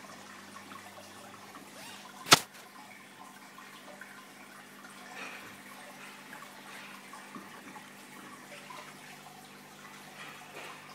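Reef aquarium water circulating: a steady trickling, bubbling wash with a low hum underneath, and one sharp click a little over two seconds in.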